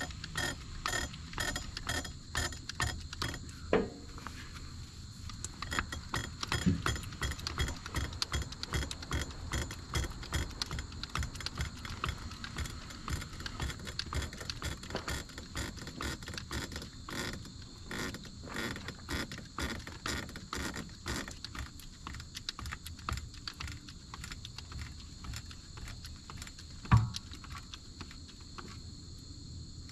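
Rapid, irregular metallic clicking and clinking, with one sharp louder knock about 27 seconds in, over a steady high insect trill.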